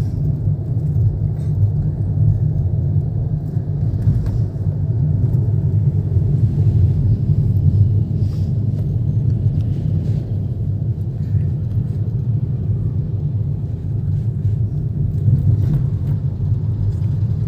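Steady low rumble of a Hyundai Grand i10 Nios on the move, heard from inside its cabin: engine and road noise at an even pace.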